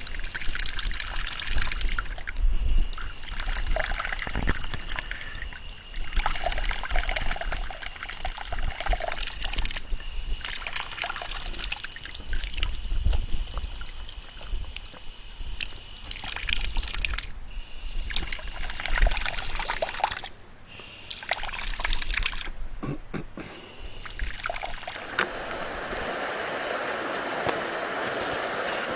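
Stream water trickling and splashing, uneven and broken by short cuts; near the end it changes to a steadier, even rush of water.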